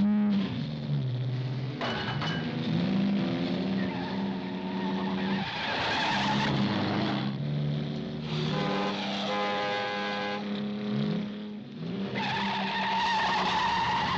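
Car-chase sound effects: a car engine revving up and down while tyres squeal repeatedly on smooth asphalt.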